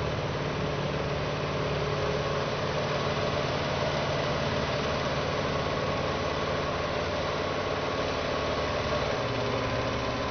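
A heavy machine's engine running steadily at a constant pitch.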